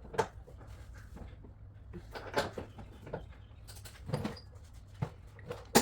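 A handful of separate short clicks and knocks of hand tools being handled on the subframe bolts, just after they were torqued with a torque wrench.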